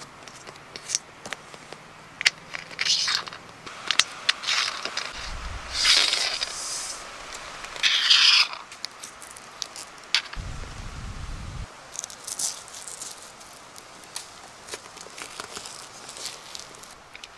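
Plastic brackets being worked onto an aluminium rail by hand: scattered clicks and scrapes with short rasping rustles, the longest about eight seconds in, and two brief low rumbles.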